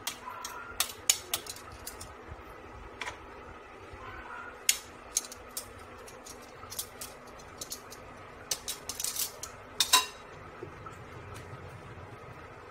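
Utensil clinking and scraping against a nonstick frying pan and a ceramic plate as udon noodles are served out. Scattered sharp clicks and clatters, with the loudest about ten seconds in.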